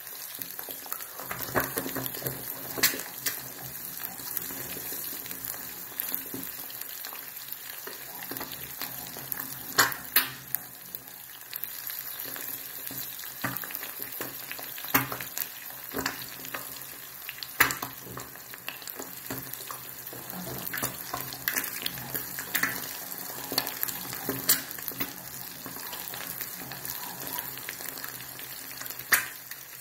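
Four eggs frying in a non-stick pan on medium heat, sizzling steadily with sharp pops and crackles scattered throughout.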